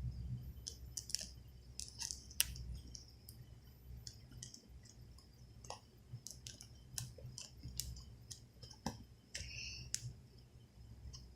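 Slime being squished and pressed by hand, giving irregular small clicks and pops, several a second.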